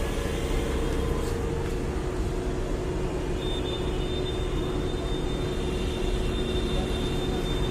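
Steady background hum with a low rumble and two constant tones; a thin high whine joins about three and a half seconds in.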